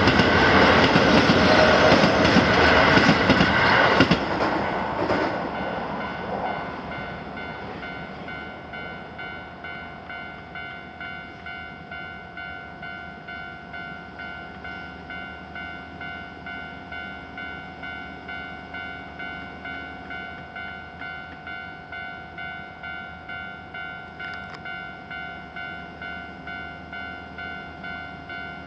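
A Keio Line train runs over the level crossing, loud for about the first four seconds, then dies away. The crossing's warning bell goes on ringing in a steady, even rhythm.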